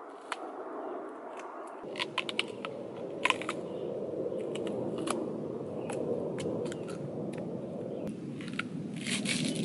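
Biting into and chewing a large raw fruit with a firm rind. Clusters of sharp, crisp crunches come about two to three seconds in and again near the end, over a steady low rushing background noise.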